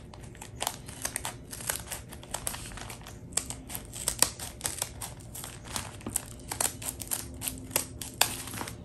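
Scissors cutting through a thick stack of folded paper lunch bags: repeated short snips at an uneven pace, with the paper crinkling as it is held and turned.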